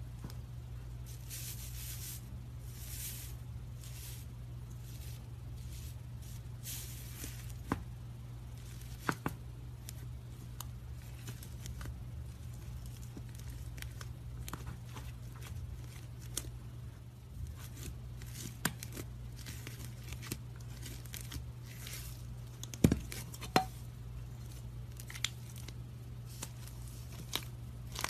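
Hands playing with slime: crinkly stretching and tearing sounds with sharp clicks and pops scattered through, the loudest of them near the end, over a steady low hum.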